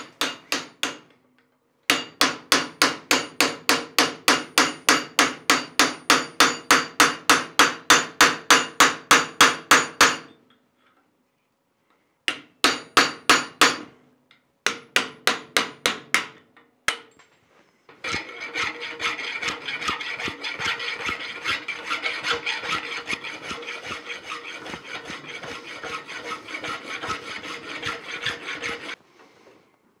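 Hammer blows on a cold chisel shearing the rag off the slot in a steel latch bar clamped in a vise: quick runs of ringing metallic strikes, about three to four a second, broken by pauses. From about 18 s in, a steady rasping of a file on the steel, cleaning up the slot, until shortly before the end.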